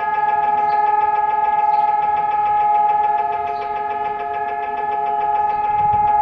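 Israel's Memorial Day siren sounding a steady, unwavering tone: several sirens at slightly different pitches blend together and swell gently in loudness, with a low rumble near the end. This is the nationwide memorial siren, the signal for everyone to stand still in remembrance.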